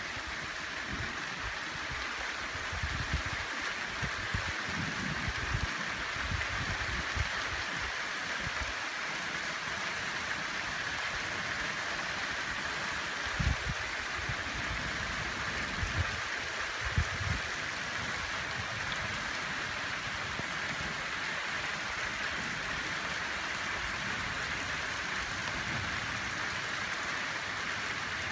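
Steady rain of a thunderstorm, an even hiss, broken by a few brief low thumps.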